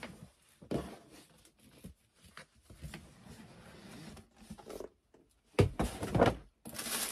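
A large rigid cardboard gift box being handled, with soft knocks and scuffs, then a few louder thumps as its lid is lifted off about five and a half seconds in. Tissue paper inside starts to crinkle near the end.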